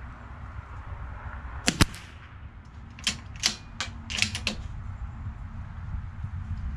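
Sharp metallic clicks from a bolt-action rifle being handled: a loud pair of clicks, then about a second later a quick run of five or six more.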